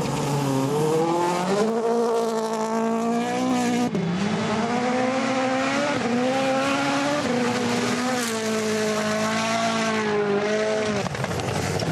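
Rally car engine driven hard at high revs, its pitch climbing and falling with sharp dips at gear changes.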